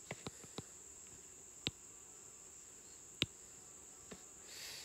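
Faint steady high-pitched trill, with a few short sharp clicks of a stylus tapping a writing tablet while words are handwritten.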